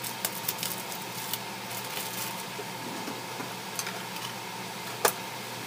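A pot of broth simmering on the stove, with plastic packaging crinkling and rustling in the hands as a bag is opened. There is a sharper crackle about five seconds in.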